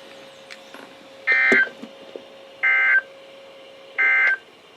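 Three short bursts of NOAA Weather Radio SAME digital data, each a harsh buzzing chirp, about a second and a half apart. This is the end-of-message code that closes the Required Weekly Test.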